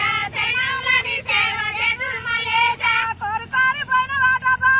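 A high voice singing a melody, with sliding pitches and held notes that grow longer and steadier about three seconds in.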